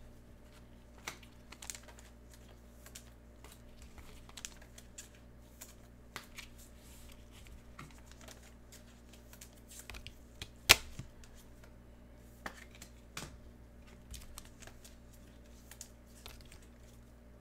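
Scattered light clicks and taps, with one sharp knock about ten seconds in, over a low steady hum.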